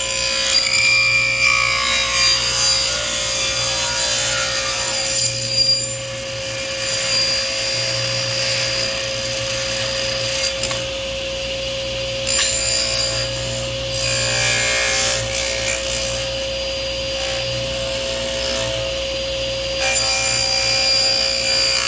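Table saw running with its blade raised into the underside of a board that is spun on a pivot over it, scraping and cutting a circle through the wood. A steady motor hum runs under a cutting noise that swells and eases as the board turns.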